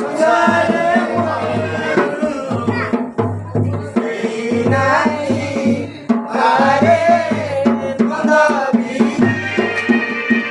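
Danda Nacha folk music: a voice singing a wavering, drawn-out melody over a regular drum beat.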